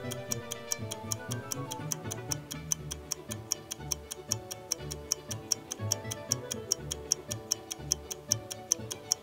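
Countdown-timer ticking sound effect: fast, even clock ticks, about five a second, over background music.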